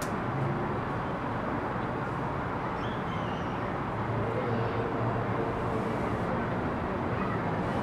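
Steady outdoor urban background noise, an even low rumble with no single sound standing out, and one sharp click right at the start.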